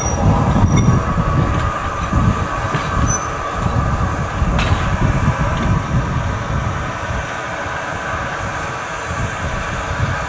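LMS 4F 0-6-0 steam locomotive moving slowly over pointwork as a light engine, with a low rumble from its wheels and motion and a few light clicks. The rumble is louder at first and eases after about six seconds.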